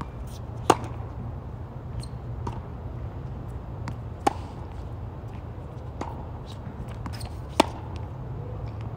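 Tennis rally: a racket strikes the ball three times sharply at the near end, the first a serve about a second in, then again about halfway and near the end, with fainter hits and bounces from the far court in between, over a steady low hum.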